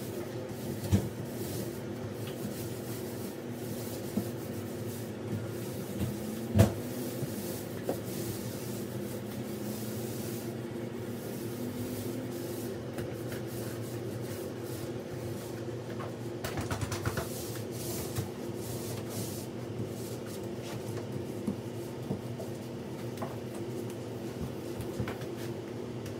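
Occasional knocks and clatter as paint rollers are worked on wall paneling and loaded from a tray, over a steady low hum. One sharper knock stands out near the first quarter, and a quick run of taps comes about two-thirds of the way through.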